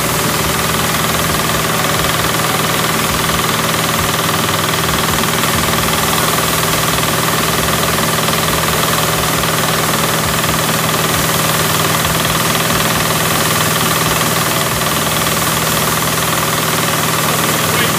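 Pasquali 10.5 HP two-wheel tractor engine running steadily under load, driving a small Vidhata stationary thresher through its PTO shaft as wheat sheaves are fed in and threshed.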